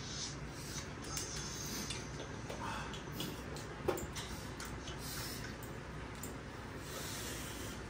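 Faint scattered clicks and taps of spoons and forks against bowls and plates during a meal, with one sharper tap about four seconds in, over steady low room noise.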